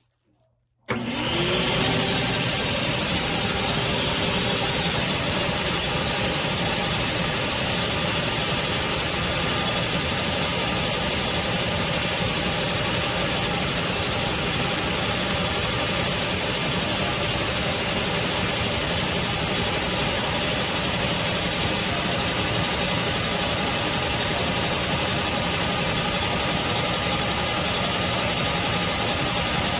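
Craftsman CMXEVBE17595 16-gallon wet/dry shop vacuum switched on about a second in: its motor spins up quickly with a brief rising whine, then runs steadily with a loud, even rush of air.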